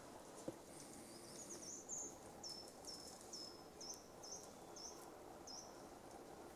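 A small bird calling faintly: a run of about eight short, high notes, each slipping down in pitch, roughly two a second, over quiet outdoor hiss. A single sharp click about half a second in.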